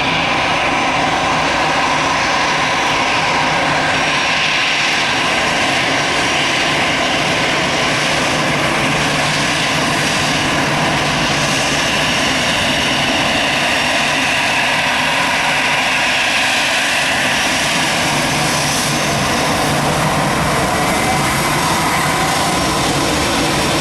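Jet airliner engines running steadily and loudly close by, a dense rush with a steady whine over it.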